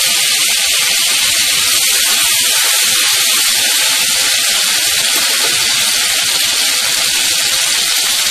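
Ginger and green chilli paste sizzling in hot mustard oil in an aluminium kadai, a steady hiss.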